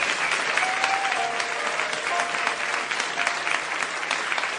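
A large theatre audience applauding: dense, steady clapping from many hands.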